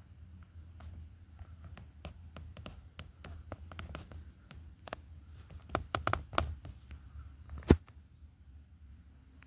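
Scattered light clicks and taps, like handling noise, over a steady low rumble, with a cluster of clicks about six seconds in and one sharper click a little later.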